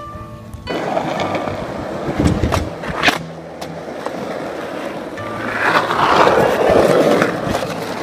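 Skateboard wheels rolling on asphalt, with a couple of sharp clacks of the board about two and three seconds in and a louder stretch of rolling near the end, over background music.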